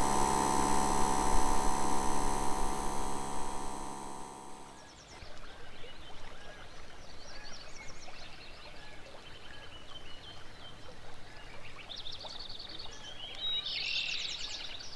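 Portable air compressor running steadily with a motor whine while inflating aired-down tyres, cut off about five seconds in. Then small birds chirping over faint outdoor ambience.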